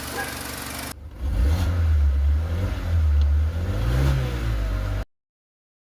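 BMW X1 engine running, then revved up and down a few times, with the sound cutting off sharply near the end. The engine is running again after a no-start fault was fixed by replacing the starter and sorting out a coil-pack problem.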